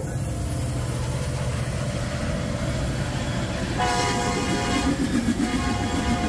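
A freight train led by Norfolk Southern SD70ACe No. 1074 passes with a steady rumble. Its air horn sounds about four seconds in, breaks briefly, then sounds again near the end.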